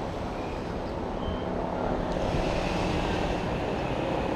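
Wind rushing over the microphone with a vehicle's engine running underneath, growing a little louder about two seconds in.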